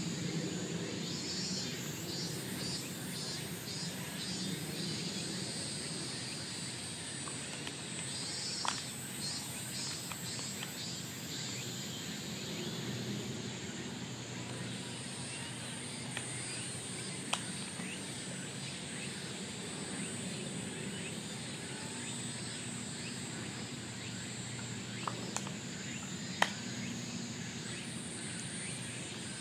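Outdoor ambience dominated by a steady high-pitched insect drone, with a rhythmic pulsing insect call twice in the first ten seconds, over a low background rumble. A few sharp clicks stand out, the loudest near the end.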